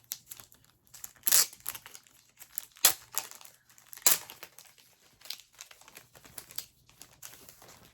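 Plastic or paper packaging being handled and torn open, with irregular crinkling and rustling and a few sharp crackles.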